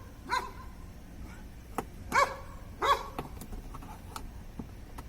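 A dog barking three short times, with a couple of faint clicks between the barks.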